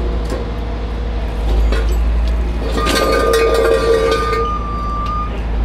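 Heavy truck diesel engine running with a steady low rumble. About three seconds in, a couple of seconds of metallic clinking and a held ringing tone from metal rigging hardware.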